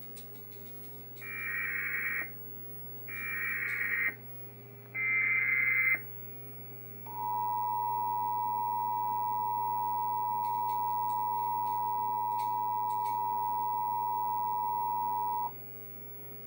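Emergency Alert System header: three roughly one-second blasts of SAME digital code, followed by the EAS two-tone attention signal (two steady tones sounding together) held for about eight seconds. Together they mark the start of an EAS alert, here a Required Monthly Test.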